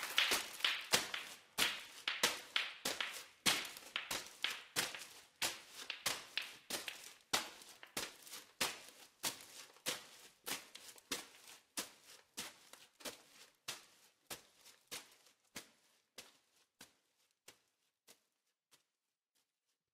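Sharp percussive taps in a steady beat, about one and a half to two a second, fading out gradually until they stop shortly before the end.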